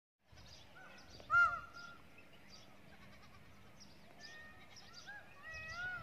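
Small birds twittering, with short whistled calls that rise and fall, more of them in the second half. A brief, loud animal call, the loudest sound, comes about a second and a half in.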